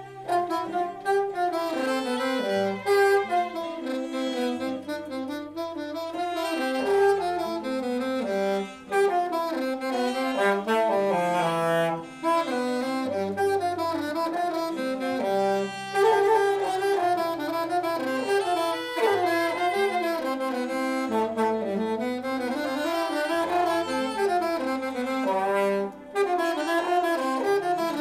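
Alto saxophone playing a jazzy melody over a backing track, with steady low bass notes changing every second or two beneath it. The sax line pauses briefly a few times between phrases.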